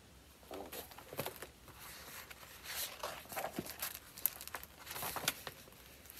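Paper rustling and crinkling with light taps as a hardcover picture book is handled and its page turned. The sounds come as a string of short, quiet rustles and clicks.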